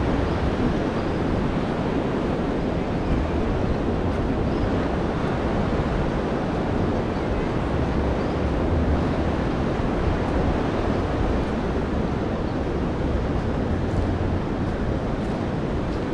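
Steady wash of ocean surf on a beach, with wind gusting on the microphone as low rumbles that come and go.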